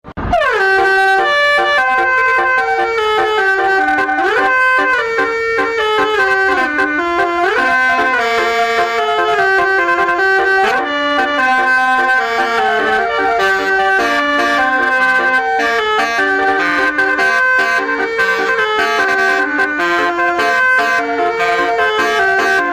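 Basuri telolet horn playing a melody: loud held notes with several tones sounding together, changing in steps without a pause, with sliding swoops in pitch about four seconds and seven seconds in.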